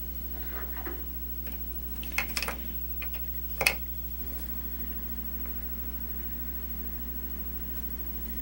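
A steady low hum, with a short cluster of light clicks about two seconds in and one sharper click, the loudest sound, a little before four seconds.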